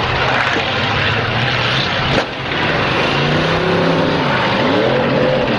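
Demolition derby cars' engines revving and running together over a dense din, their notes rising and falling. A short sharp crack about two seconds in.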